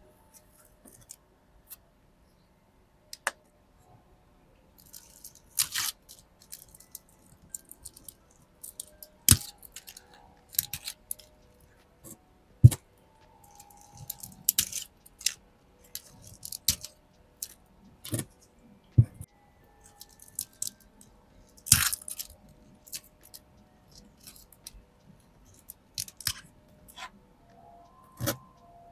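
Hands tending succulents: dry old leaves being plucked and crackling, with scattered rustles and a few sharper knocks as pots are handled.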